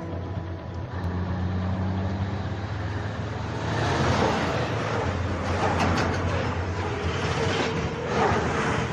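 Semi-truck hauling a fuel tanker trailer driving past close by: its diesel engine drones steadily, and a rushing tyre and road noise swells about three and a half seconds in, surging several times as the wheels roll by.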